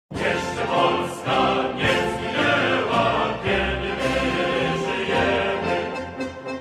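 Background music with choral singing, cutting in suddenly after a moment of silence.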